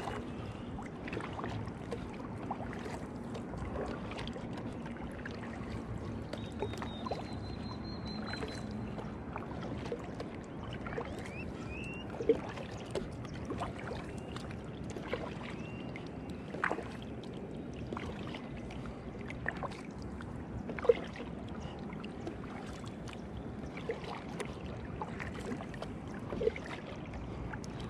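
Kayak paddle strokes through calm water: the double-bladed paddle dipping and pulling, water dripping off the blades, and a few sharp knocks.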